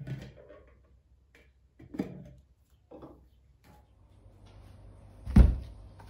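A few soft knocks of things being handled and set down on a kitchen counter, with one much louder thump about five seconds in.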